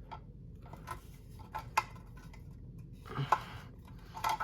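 Metal ceiling fan down rod being turned in the fan's motor coupling to line up the pin holes, giving a few sharp metallic clicks and clinks: one about two seconds in, a small cluster about three seconds in, and more near the end.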